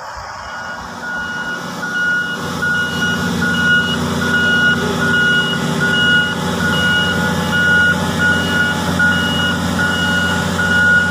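Backup alarm of heavy mining equipment beeping steadily about twice a second over the steady drone of a large diesel engine, which grows louder about a second in.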